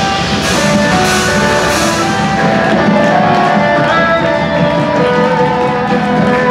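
Folk metal band playing live: electric guitars, bass and drum kit in an instrumental passage, with a guitar melody stepping over the top.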